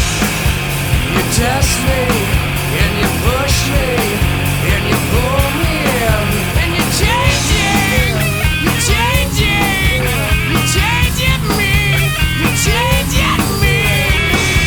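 Instrumental passage of a rock song: a steady drum beat and bass under lead lines that bend and slide up and down in pitch, with no vocals.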